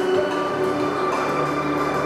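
Music with long held notes playing from a Creative Stage V2 2.1 soundbar and subwoofer, streamed to it over Bluetooth from the TV.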